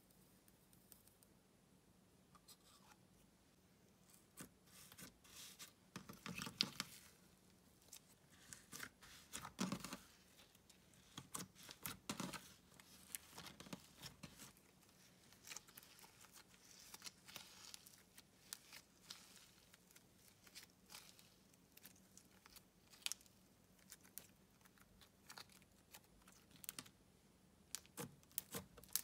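White slime mixed with purple glitter being stretched and folded by hand, giving faint, irregular sticky crackles and small pops in loose clusters, starting a few seconds in.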